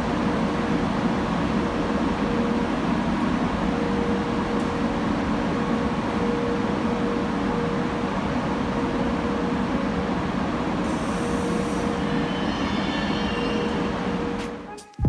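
Caledonian Sleeper train, a Class 92 electric locomotive hauling sleeper coaches, rolling slowly along the platform: a steady rumble with a constant tone that stops about eleven seconds in.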